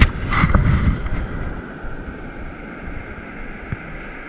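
Ocean surf washing and foaming in the shallows, with wind rumbling on the microphone. A sharp knock right at the start and a short splashy burst within the first second stand out above the steady wash.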